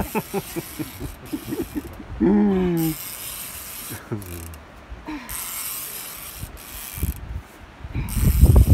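Heavy sturgeon fishing reel ratcheting in bursts with short breaks, under load from a hooked fish pulling the bent rod. A loud, short, rising pitched sound cuts in about two seconds in.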